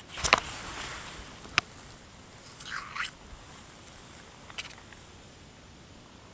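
Handling noise from a hand-held camera and rustling of low forest-floor vegetation as the camera is brought down to ground plants. A loud crackling burst comes just after the start, sharp clicks follow about a second and a half in and again near four and a half seconds, and a short rustle comes around three seconds.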